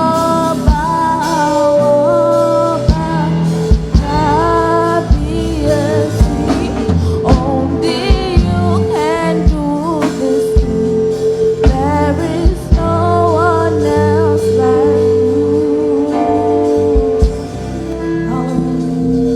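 Gospel music with singing: sung melody over sustained chords and a steady drum beat.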